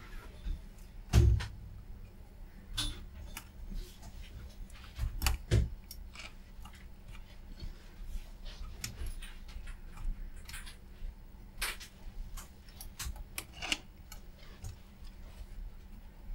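Irregular small clicks and taps of hand tools against a circuit board and its metal chassis during desoldering with a soldering iron and braid, with two heavier bumps about a second in and around five seconds in.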